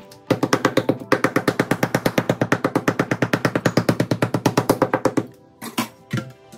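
A fork stabbing a raw steak over and over in quick, even strikes for about five seconds, then stopping: the steak is being tenderised by stabbing before seasoning. A couple of separate knocks follow near the end.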